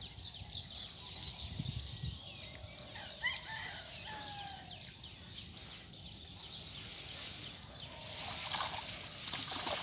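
A rooster crows once, about three seconds in, a rising call that holds and then falls away, over a steady high hiss.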